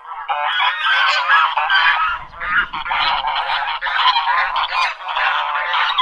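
A flock of geese honking, many loud calls overlapping without a break, starting a moment in.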